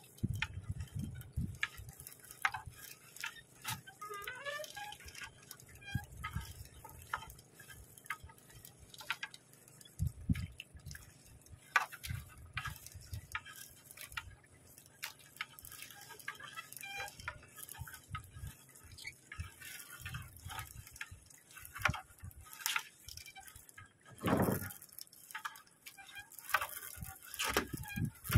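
A wet nylon gill net being hauled by hand over the side of a wooden outrigger boat: scattered clicks, taps and rustles of mesh and hands against the hull, with water dripping off the net. One louder, longer rustle comes near the end.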